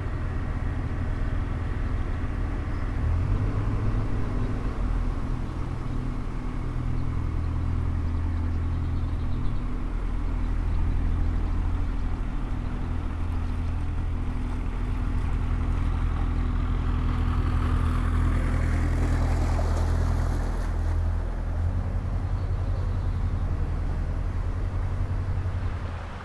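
Narrowboat's diesel engine running steadily at cruising speed, a low hum, with a brief rushing hiss about two-thirds of the way through.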